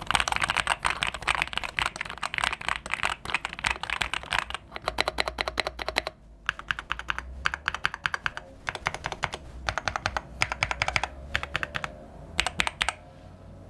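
Typing on a GMK67 65% mechanical keyboard fitted with factory-lubed KTT Darling linear switches. Rapid keystrokes come thick and fast for the first four seconds or so, then in shorter runs separated by brief pauses.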